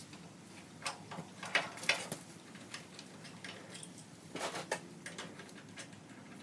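Socket ratchet clicking in short runs, with a few sharp metal clinks, as a bolt on the underside of the tractor's engine is worked loose. The clicks come in a cluster about a second in and again about four and a half seconds in.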